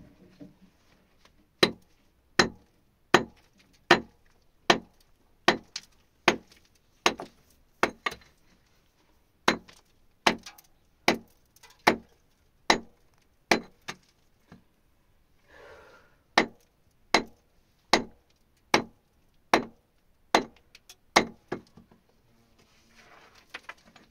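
A hand tool striking a hard surface over and over at a steady pace, about one blow every three-quarters of a second, with a brief pause a little past the middle.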